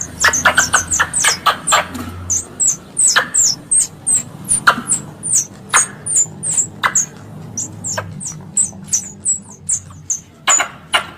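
Squirrel calls played as a hunting lure: a run of short, sharp, high chirps, each dropping in pitch. They come thick and fast at first, then thin out to a chirp every half second or so, and crowd together again near the end.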